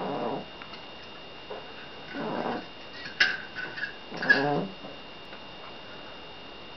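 Seal point Siamese cat snoring in its sleep: three throaty snores about two seconds apart, the last with a whistling, pitched ring. A brief sharp click comes between the second and third.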